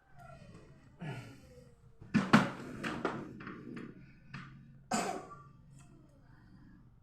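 A small child coughing in several separate bouts, the loudest about two and a half seconds in.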